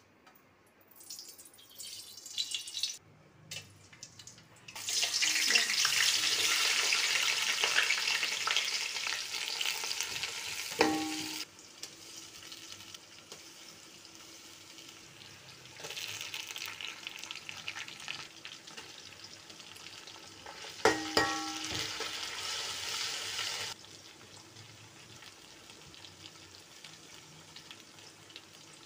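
Sliced onions frying in hot oil in an aluminium pot: two long stretches of loud sizzling, with a metal spoon clinking against the pot twice.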